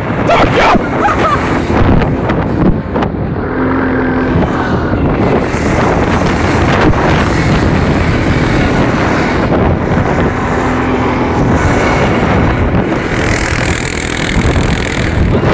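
Off-road vehicle's engine running steadily while riding on a dirt track, with heavy wind and road noise on the phone's microphone.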